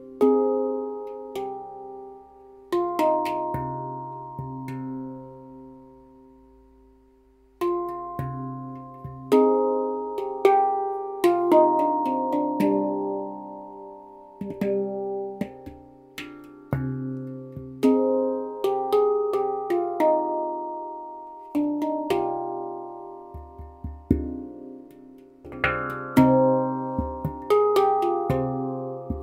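Stainless-steel Baopan handpan tuned to C minor, played with the hands: struck notes ring and decay, overlapping into a melody. About three seconds in a note is left to ring and fade, and the playing resumes about eight seconds in and grows busier.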